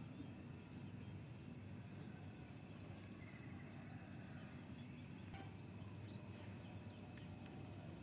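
Quiet outdoor ambience: a steady low rumble with a few faint short chirps and a couple of light taps in the second half.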